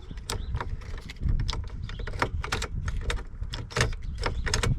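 A run of sharp clicks with keys jangling as a new ignition lock cylinder in a Chevy Silverado steering column is seated and its key is worked through its positions.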